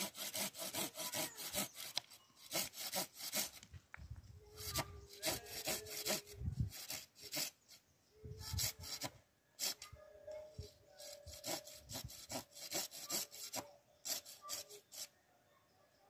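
Wood being cut with a hand saw, in runs of quick strokes with short pauses between them.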